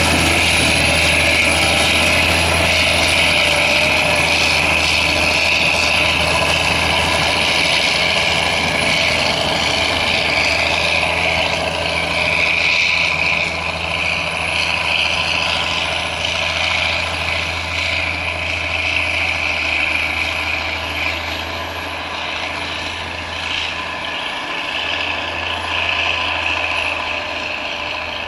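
Snowcat diesel engines running steadily as the piste groomers drive off along the slope, the sound slowly fading as they move away.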